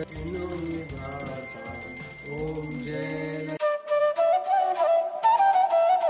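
Music with wavering voices over a steady high ringing, cut off suddenly about three and a half seconds in by a solo flute melody.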